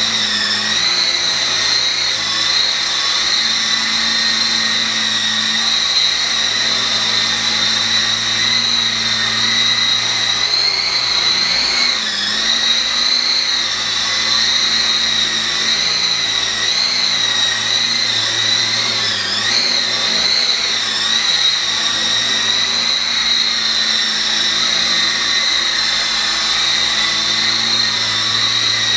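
E-sky Lama coaxial RC micro helicopter's electric motors and rotors whining steadily, the pitch wavering slightly and dipping and rising once about twenty seconds in.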